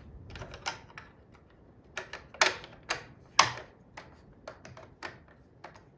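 A series of irregular sharp clicks and knocks, like small hard objects being handled. The two loudest come about two and a half and three and a half seconds in.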